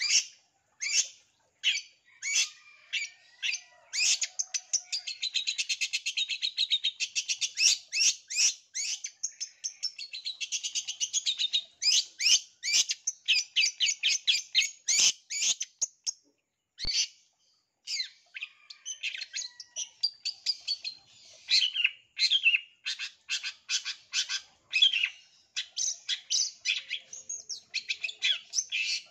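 Long-tailed shrike (cendet) singing a loud, fast song of sharp, high notes and quick rattling trills in rapid-fire runs, with a short pause about sixteen seconds in.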